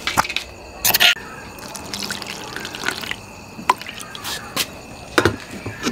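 Water splashing and dripping in a bowl as ground soaked sticky rice (khao buea) is mixed into water to thicken the curry, with a few brief knocks.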